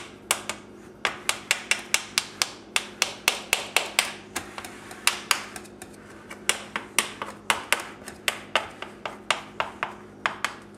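A knife chopping quickly through pie-crust dough against the rim of a metal pie tin, trimming the edge: a rapid series of sharp clicks, about three to four a second, with a short pause about six seconds in.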